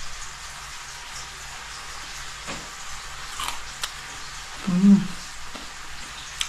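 King bolete mushroom slices frying in a pan, a steady sizzle with a few faint crackles. About five seconds in, a short hum from a person chewing.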